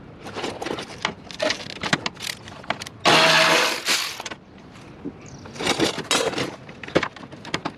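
Clicks and clanks of tools and metal parts being worked loose during a car teardown. About three seconds in, a loud rushing burst lasts about a second.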